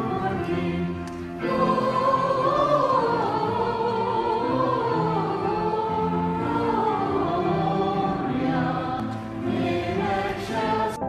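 Choir singing a slow, wavering melody over a steady accompaniment, swelling louder about a second and a half in.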